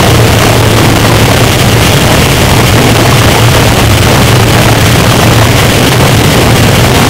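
Harsh noise music: a loud, unbroken wall of distorted noise filling the whole range, with a steady low hum underneath.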